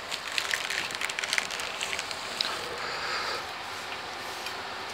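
Crackly rustling of gloved hands and a plastic bag as dry rub is scooped up and rubbed onto a raw pork shoulder. The crackle is busiest in the first two seconds, then settles into a softer rustle.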